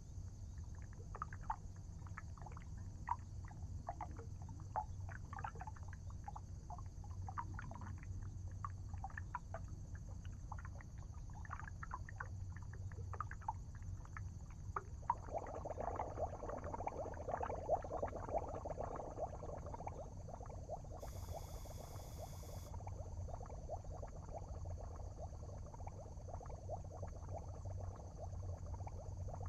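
Water bubbling as gas bubbles form on electrodes in electrolysis. It starts as scattered small pops and turns into dense, continuous bubbling about halfway through, over a low steady hum, with a short hiss about two-thirds of the way in.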